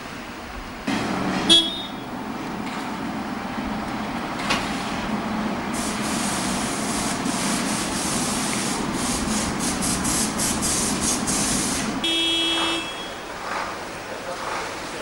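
Street traffic with vehicles running. A short horn toot comes about a second and a half in and another about twelve seconds in, and a loud fluttering hiss runs from about six to twelve seconds.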